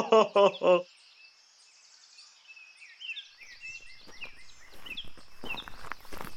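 Birds chirping in short, repeated calls, joined about five seconds in by the rustling and knocking of a hardcover picture book being handled as its cover is opened.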